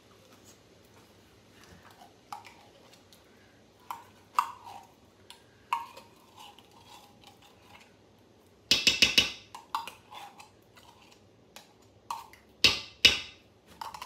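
A spoon scraping tomato paste out of a small metal can, with light metal-on-metal clinks and short rings. About nine seconds in comes a quick run of sharp taps, and near the end two louder knocks of spoon against can.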